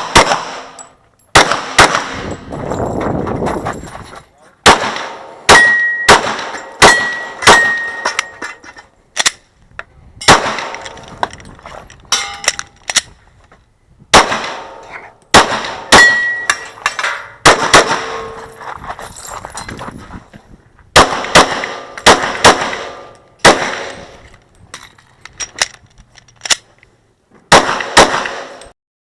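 Glock 22 .40 S&W pistol fired in rapid strings of shots, in several bursts separated by pauses of a second or two. A few of the shots are followed by a short metallic ring.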